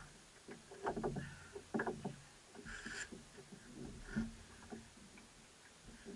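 Rope being hauled in hand over hand from the water and coiled in a small boat: scattered knocks and rubbing of rope against the hull, with a brief hiss about three seconds in.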